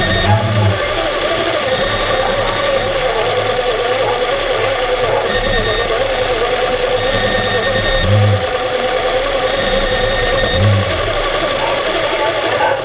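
Steady mechanical hum heard underwater in a large pool, with a wavering mid-pitched tone over a constant noise. Three brief low rumbles come through: one right at the start, one about eight seconds in and one near eleven seconds.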